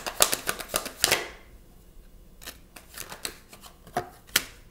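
A tarot deck being shuffled by hand: a fast run of card clicks that stops about a second in, then a few separate snaps and taps as cards are drawn and laid on the table.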